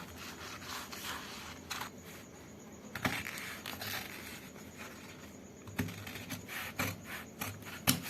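Scissors cutting through blouse fabric, with irregular snips and the rasp of the blades through the cloth.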